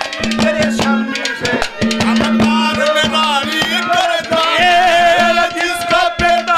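Live Haryanvi folk band playing an instrumental passage between ragni verses: quick hand-drum strokes over a steady drone and a wavering melody.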